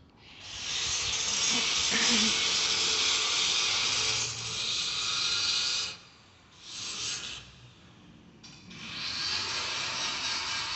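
A loud, steady hiss that cuts out about six seconds in, comes back briefly, then resumes and holds steady from about a second later.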